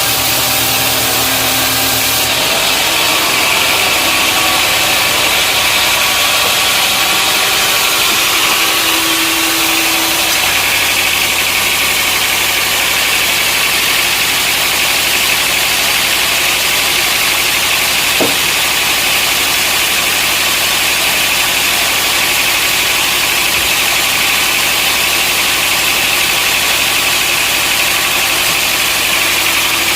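Sawmill machinery running steadily: a constant mechanical drone with a hiss over it, shifting slightly a couple of times.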